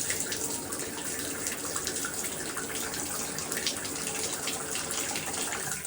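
Water running steadily from a shower controlled by a Delta valve with a newly fitted cartridge, with no knocking: the valve works again after the repair.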